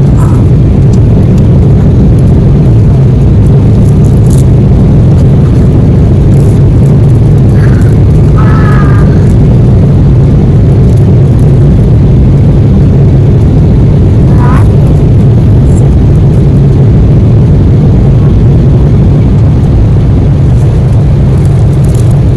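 Jet airliner cabin noise in flight: a loud, steady low rumble of the engines and rushing air, heard from inside the cabin.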